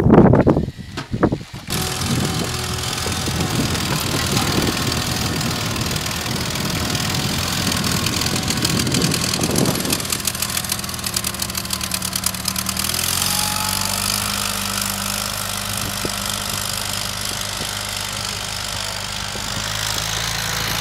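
A few loud knocks in the first two seconds, then a vehicle engine running steadily as a tow vehicle pulls the recovered pickup across the ice on a chain and cable.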